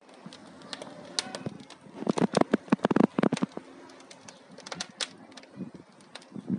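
Wood fire in a fireplace crackling: irregular sharp pops and snaps, thickest in a quick flurry from about two to three and a half seconds in.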